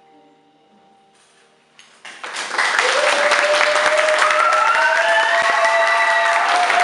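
A grand piano's final chord ringing and dying away, then applause breaking out about two seconds in and going on loudly, with a long tone rising slowly in pitch over it.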